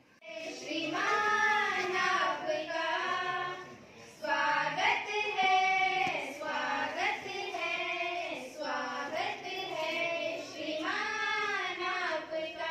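A group of schoolgirls singing a welcome song together in long held phrases, with a short break about four seconds in.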